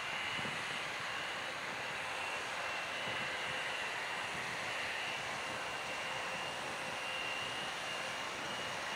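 Airbus A300 freighter's jet engines at takeoff power as it climbs away: a steady rushing jet noise with a thin, steady high whine over it.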